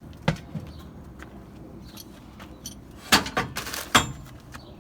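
Metal clinks and knocks from tools and parts during transmission removal: a single sharp knock shortly after the start, then a cluster of louder clanks about three to four seconds in, one leaving a brief metallic ring.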